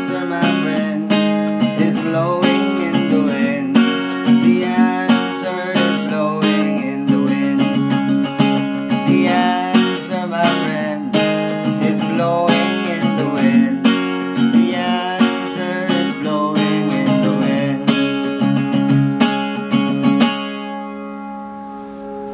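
Small-bodied acoustic guitar with a mahogany top, strummed in a steady rhythm of chords without singing. About twenty seconds in, the strumming stops on a final chord that rings on and fades.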